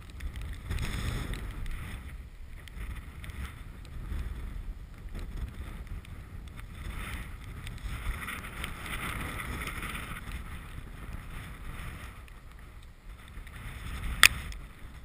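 Strong wind buffeting the camera's microphone: a steady low rumble that swells and eases. Near the end, a single sharp click.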